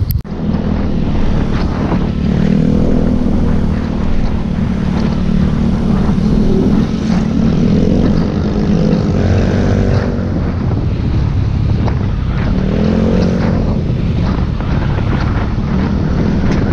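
Motorcycle engine running while riding, with heavy wind rumble on the microphone; the engine note swells and falls a few times.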